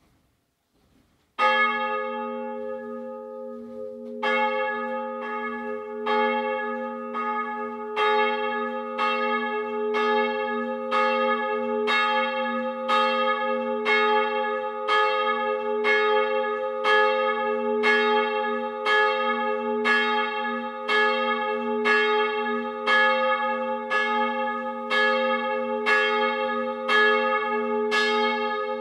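A 500 kg bronze church bell cast in 1689 by Abraham Sievert, with nominal A-flat, ringing on its own. It starts with a single stroke about a second and a half in and a second stroke about three seconds later, then strikes steadily about once a second, each stroke ringing on into the next.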